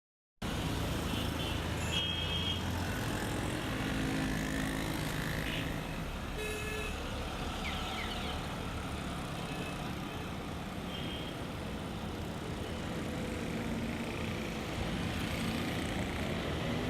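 City street traffic: a continuous low rumble of passing cars and trucks. A few short high tones cut through about two, six and eleven seconds in, with a brief sliding squeal near eight seconds.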